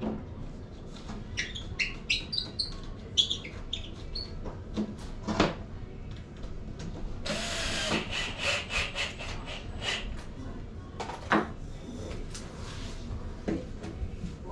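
A power drill runs briefly about seven seconds in, spinning up with a rising whine, among scattered clicks and knocks of tools and wooden pieces being handled.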